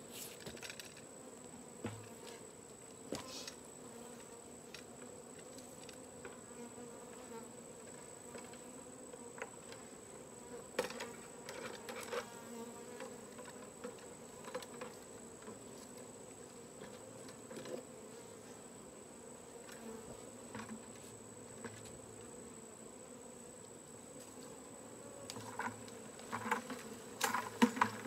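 Honeybee swarm buzzing as a steady low hum. Near the end come a few louder knocks and rattles as a bucket on a pole is pushed up into the branches.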